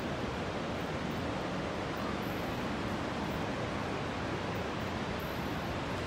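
Steady, even rushing noise of the Iguazu Falls, with no break or change.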